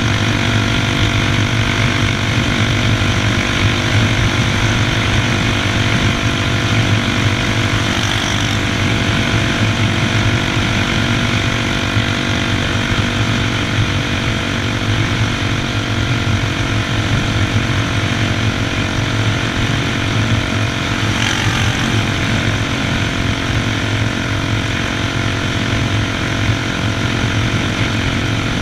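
Honda XR 250 Tornado's single-cylinder engine running steadily at cruising speed while the motorcycle is ridden, with no change in engine speed.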